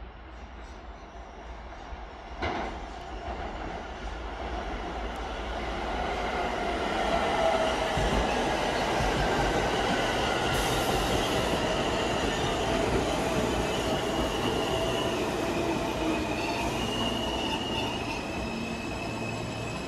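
R160B subway train running along the tracks, its rumble growing louder over the first several seconds, with wheels squealing and a whining tone that slides down in pitch. A single sharp click comes about two and a half seconds in.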